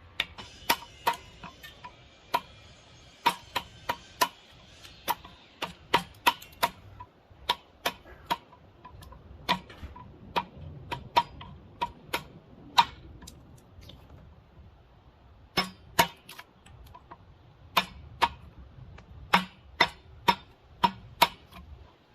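Woodworking chisel being struck repeatedly, chopping out hickory between saw relief cuts on an axe-handle blank: sharp, irregular knocks with a short ring, about one or two a second, with a pause of a couple of seconds past the middle.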